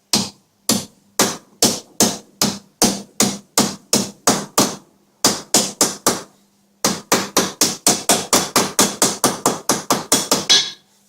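Hammer blows on sheet steel, folding its edge over a homemade bending brake to form a lip. The blows are steady at about two to three a second, with two short pauses, then speed up to about four a second before stopping.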